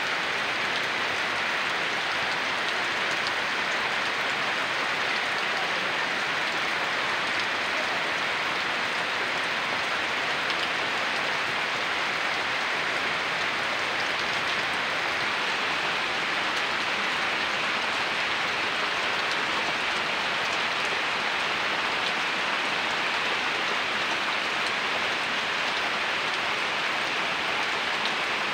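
Heavy rain falling on oil palm fronds and wet ground: a steady, even hiss that holds at the same level throughout.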